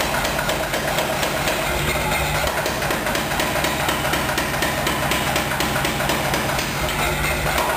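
Corsi Giovanni 40 kg mechanical power hammer pounding a red-hot iron bar in rapid, steady, evenly spaced blows, with a low machine hum beneath.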